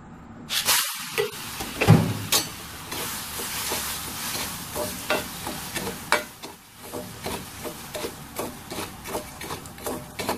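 Slotted metal spoon stirring and scooping black chickpeas through hot roasting salt in a kadai: a dry, gritty hiss broken by frequent scrapes and taps of the spoon on the pan, with one loud knock about two seconds in.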